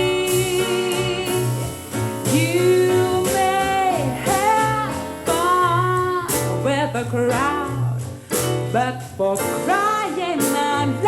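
A song with a singing voice over instrumental backing: a held chord at first, then the vocal comes in about two seconds in.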